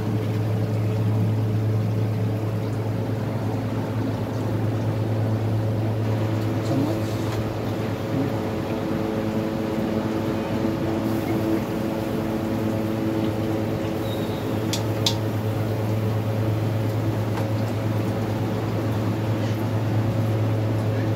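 Induction cooktop running with a steady low electrical hum and a fan-like hiss, a pressure cooker of hot oil on it. Two small sharp clicks sound about two-thirds of the way through.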